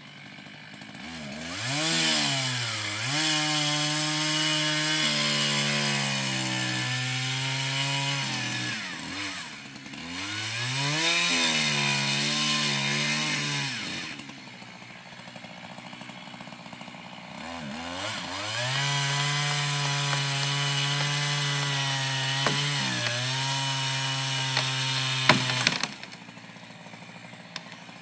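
Chainsaw revving up and cutting wood three times, its engine note holding steady under load during each cut and dropping back to idle between cuts; near the end it drops to idle.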